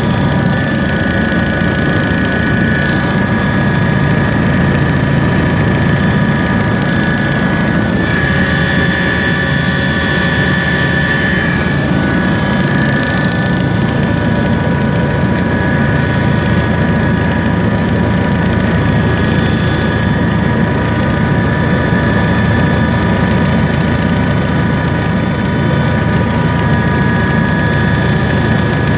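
A large engine running with a steady, unchanging drone: a heavy low rumble with several constant whining tones over it.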